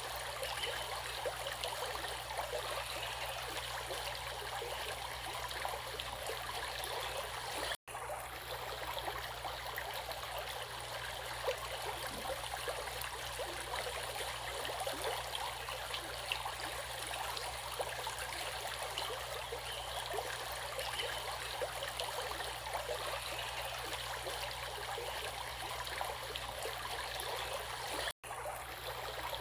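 Flowing stream water, a steady babbling rush that cuts out for an instant twice, about eight seconds in and near the end.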